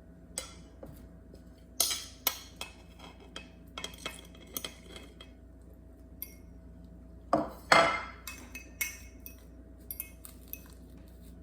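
Kitchen utensils clinking and knocking against dishes, irregular taps with two louder clusters about two seconds in and near eight seconds, as mashed banana is measured out for pancake batter.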